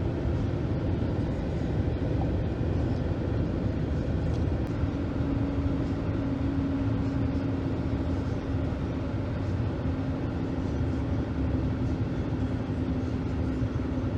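Steady low rumble of engine and road noise inside the cab of a 2013 Ford F-150 with the 3.5-litre EcoBoost V6, under way. A steady hum comes in about five seconds in.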